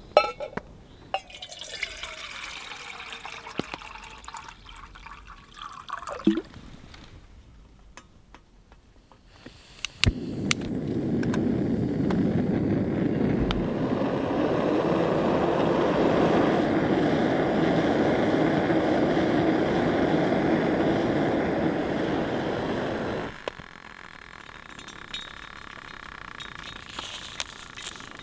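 Heavy rain pouring down as a loud, steady wash of noise that starts suddenly about ten seconds in and cuts off abruptly some thirteen seconds later. Before it comes a quieter stretch with a few clicks and a sliding tone.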